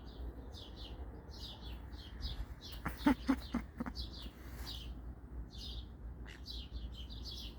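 A small bird chirping over and over in quick short high notes, several a second, with a few sharp knocks about three seconds in.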